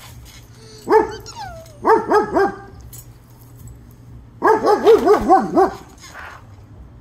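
Husky barking in short runs: one bark about a second in, three quick barks about two seconds in, and a fast string of about seven barks from about four and a half seconds in.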